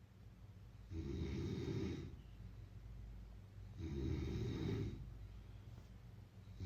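A person snoring in a slow, steady rhythm: two low, rattling snores about three seconds apart, each lasting about a second, with quieter breathing between them and a third snore starting at the very end.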